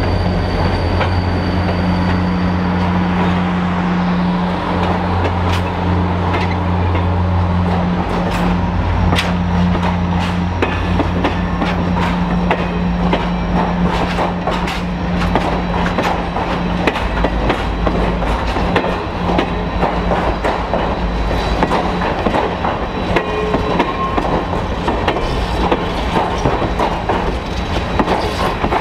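Diesel-hauled passenger train rolling past at close range: the locomotive's engine drone fades away in the first several seconds, leaving the coaches' wheels clicking over rail joints with now and then a faint squeal.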